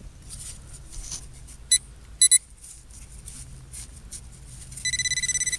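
Metal detector beeping at a dug soil plug: a short beep, then two quick beeps, then from near the end a fast run of about ten beeps a second on the same high tone, the sign of a metal target close to the search head.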